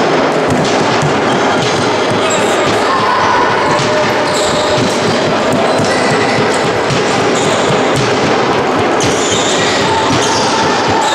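Handball being played in a large sports hall: the ball bouncing on the wooden floor amid a steady din of players' and spectators' voices.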